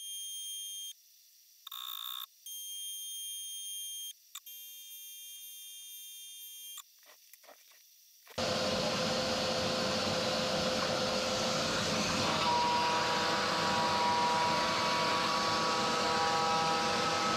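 Genmitsu ProVerXL 4030 CNC router: high-pitched stepper-motor whines in stretches of one to a few seconds, with a short beep about two seconds in. About eight seconds in, a loud steady noise starts suddenly as the spindle cuts into maple plywood, with whining tones added about four seconds later.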